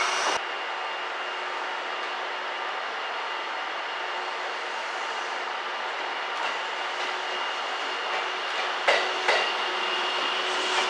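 JR 651-series seven-car electric express train moving slowly along the platform: a steady running rumble with a faint motor tone. Sharp wheel clacks over rail joints come in near the end.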